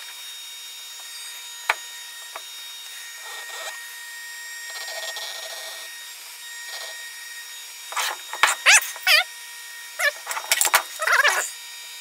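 Hands working at a small wooden box: a paper towel rubbing and wiping over it, with light clicks and knocks of handling. Louder squeaky rubbing and scraping comes twice in the second half.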